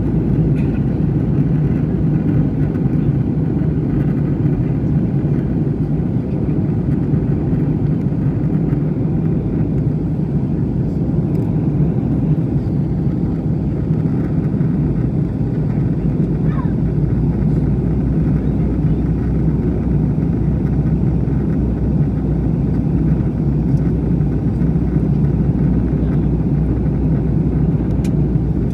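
Steady in-flight cabin drone of an Airbus A321 from a seat by the wing: engine and airflow noise, a constant low rumble that does not change.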